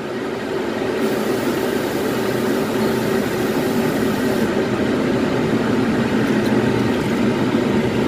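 Water poured from a bowl into a hot wok of stir-fried vegetables, with a high hiss for a few seconds starting about a second in. A steady machine hum runs underneath.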